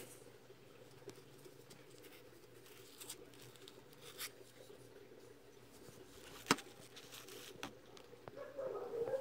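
Quiet room with a faint steady hum and a few scattered light clicks and taps, the sharpest about six and a half seconds in.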